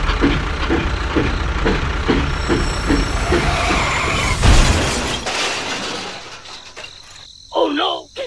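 An engine running with a regular knock about three times a second, with a loud burst about four and a half seconds in, then fading away.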